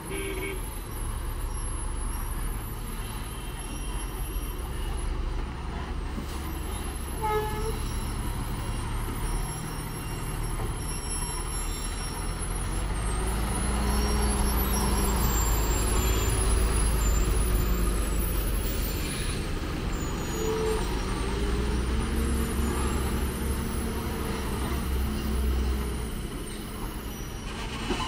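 Heavy diesel lorries running slowly around a steep hairpin bend, their engine rumble swelling as one truck passes close by in the middle and then easing off.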